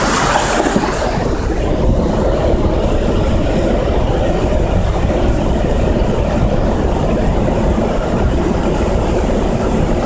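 Flash flood of muddy water, rocks and debris rushing past, a loud steady low rumble heard from inside a truck cab. About a second in, the hiss of the water drops away and the rumble becomes muffled.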